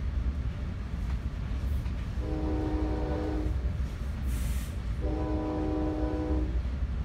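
Nathan K5LA five-chime horn on a Bombardier multilevel cab car sounding two long blasts, each about a second and a half, heard from inside the passenger car over the steady rumble of the moving train.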